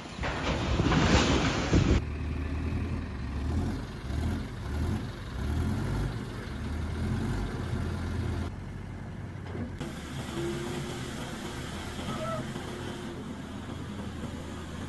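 Diesel engines of heavy earthmoving machinery running under load. A loud, rough noisy burst comes first, then a low drone that swells and eases, then a steadier drone, with abrupt changes where the footage cuts.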